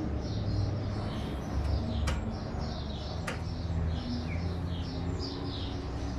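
Small birds chirping over and over in the background above a low steady hum, with two sharp clicks about two and three seconds in.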